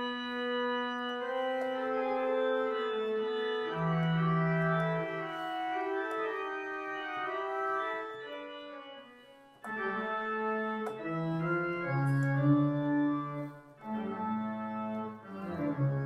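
Sampled church pipe organ (Hauptwerk virtual organ software) playing slow, held chords, with deep pedal notes coming in about four seconds in. The sound briefly thins out twice, near the middle and shortly before the end.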